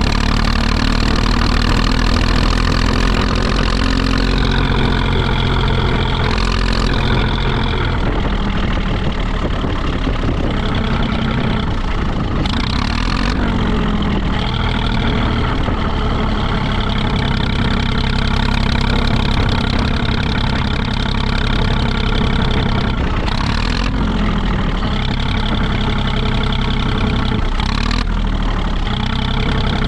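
Zetor 5211 tractor's three-cylinder diesel engine running steadily, its pitch shifting slightly a few times, with a few brief clattering noises.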